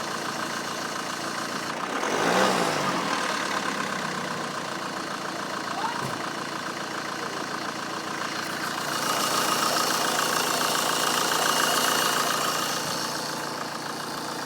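Vauxhall Astra H 1.7 CDTI turbo-diesel engine running, with an unidentified odd noise coming from around the turbocharger. It swells louder briefly about two seconds in and again for a few seconds in the second half, with more hiss.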